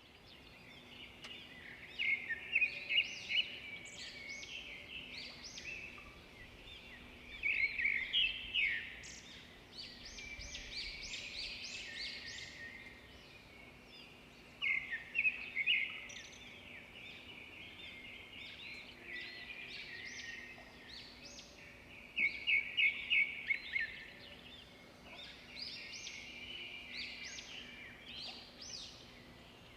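Birds singing, with loud runs of quick repeated notes about every seven seconds and softer calls between them.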